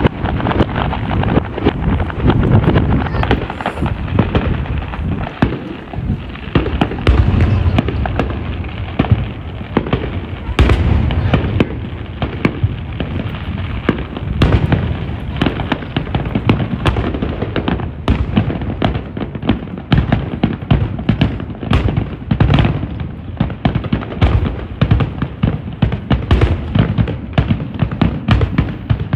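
Aerial fireworks shells bursting over and over, many overlapping booms and sharp crackling reports, several a second, with no pause between them.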